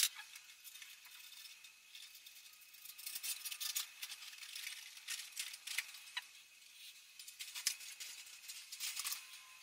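Faint, scattered metallic rattling and small clicks of coiled kiln heating-element wire being handled and threaded onto support tubes in the kiln's grooves, busier from about three seconds in.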